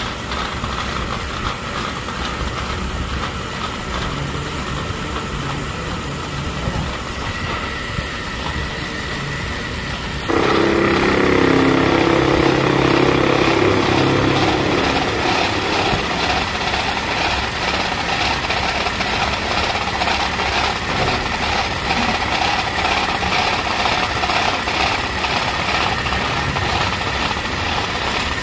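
Small belt-driven metal lathe running with a steady mechanical drone; about ten seconds in it suddenly gets louder and fuller and stays that way.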